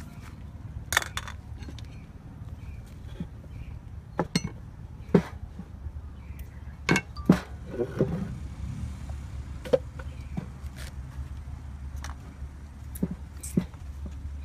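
Irregular light knocks and clinks of hand food preparation: a knife, garlic cloves and dishes tapping on a wooden chopping board, about a dozen separate taps with no steady chopping rhythm, over a low steady rumble.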